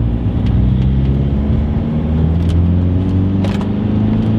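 Audi A4 TDI diesel engine heard from inside the cabin while driving. The engine note dips about a second and a half in, then climbs steadily as the car accelerates: a dull diesel drone with little character.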